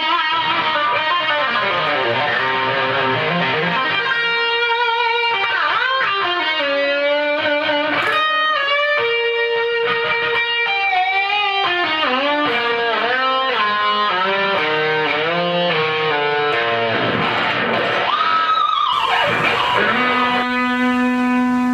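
Fernandes Revolver Pro electric guitar played through a Marshall JMP-1 preamp: a lead melody of single sustained notes with vibrato and bends. Near the end the pitch swoops deeply down and back up, then one note rings on steadily.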